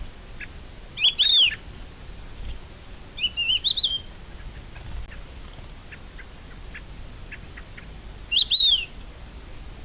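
Bird calls: three loud, short, high arching calls, about a second in, around three and a half seconds in, and near the end, with faint short chirps in between.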